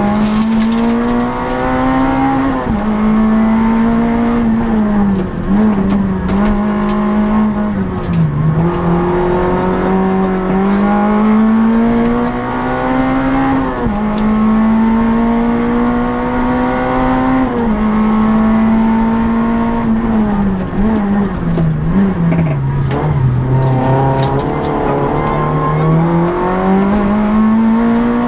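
Citroën Saxo Group N rally car's four-cylinder engine heard from inside the cabin at full stage pace. The revs climb steadily in each gear and fall sharply at the gear changes, several times over.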